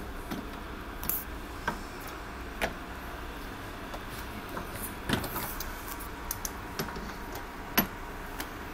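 Scattered metallic clicks and knocks of a long wrench and socket being fitted and worked on a car engine's main crankshaft bolt, the loudest knock near the end.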